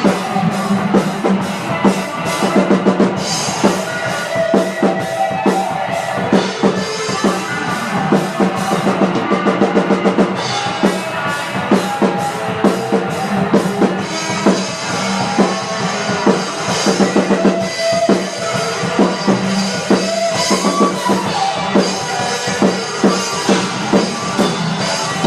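Drum kit played live in a busy beat, with bass drum, snare and cymbal hits several times a second. Steady held notes from another instrument sound underneath.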